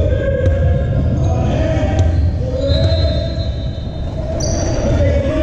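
A basketball dribbled and bouncing on a gym floor during a game, with voices calling out over it in an echoing hall.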